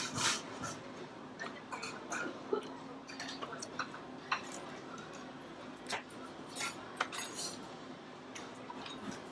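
Metal cutlery clinking and scraping on ceramic plates while eating, with a sharp clink at the very start and then light, irregular clicks.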